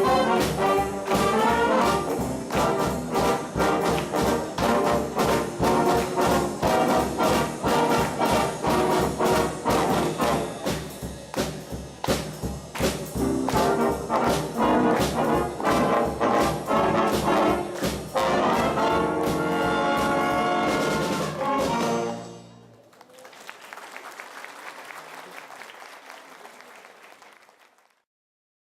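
High-school big band playing jazz: trumpets and trombones over a steady beat, finishing on a held chord about three-quarters of the way through. A fainter even noise follows for several seconds before the sound cuts off.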